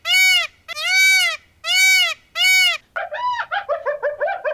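An animal calling: a series of high, arched bleat-like calls, each about half a second long. About three seconds in it breaks into a fast chattering run of short calls.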